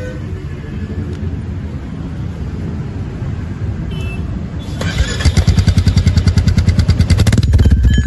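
Royal Enfield Meteor 350's single-cylinder engine idling through a Red Rooster Polestar aftermarket silencer. The note is muffled at first, with the DB killer still in. About five seconds in, once the DB killer is pulled out, it turns much louder, with an even beat of exhaust pulses, about eight a second.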